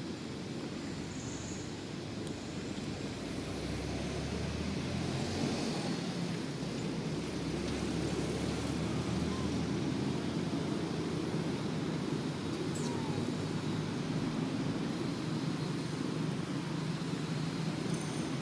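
Steady low rumble of outdoor background noise, with a deeper rumble swelling from about four seconds in and fading away near the middle.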